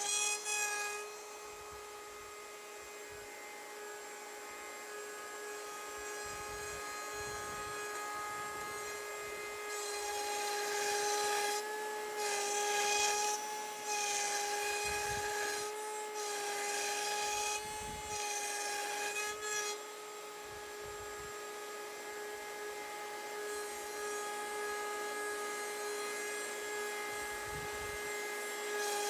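Table-mounted router running at a steady high whine while the bit cuts a wood circle. The cutting noise swells louder in surges from about ten seconds in to about twenty, as the workpiece is turned against the bit.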